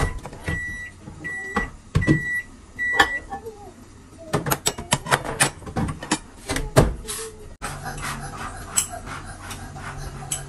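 A kitchen appliance's hum cuts off and it beeps five times, short high tones about two-thirds of a second apart, the signal that its cycle has finished. Then come a few seconds of clinking and clattering of plates and spoons, and a low hum starts again near the end.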